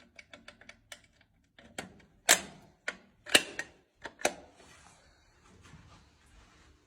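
Sharp mechanical clicks and knocks from a small hard object being handled: a quick run of light clicks in the first second, then louder, irregularly spaced knocks, the loudest about two and a half and three and a half seconds in.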